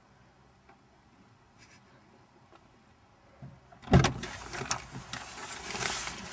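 Near silence, then about four seconds in a car door is pulled open with a sudden clunk, followed by rustling and bumps as someone climbs into the seat.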